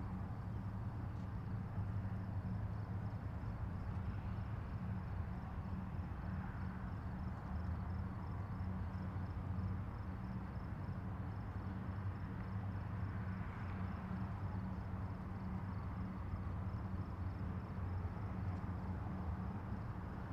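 Steady low drone of the tugboats' and ship's diesel machinery as the cargo ship is towed past, with a faint fast high ticking over it.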